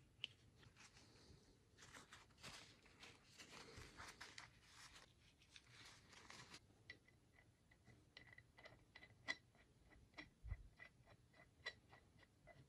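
Faint crinkling of a paper tissue wiping a brake caliper, then a run of light metallic ticks, about four a second, as a bleed screw is threaded into the caliper by hand.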